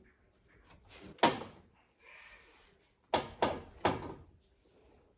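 Sharp knocks and clunks from working on a front-loading washing machine during a door seal replacement: one about a second in, then three in quick succession near the three-second mark, each with a short ringing tail.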